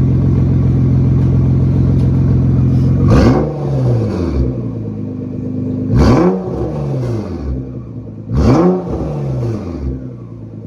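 Nissan GT-R R35's twin-turbo V6 through a 4-inch titanium straight-pipe exhaust, idling steadily, then blipped three times, each rev rising and falling back to idle within about a second.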